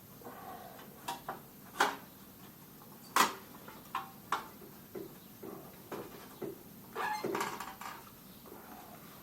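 Scattered sharp clicks and knocks of hand tools on metal parts while a moped's front fender is being unbolted, with a short scraping rattle about seven seconds in.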